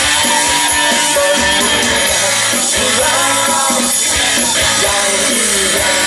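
Live rock band playing: a man singing over bass guitar, electric guitar and drums, heard from the audience.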